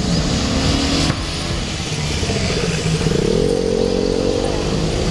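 KTM 390 Adventure's single-cylinder engine running under way, with a brief dip about a second in, like a gear change, then the engine note rising as it accelerates.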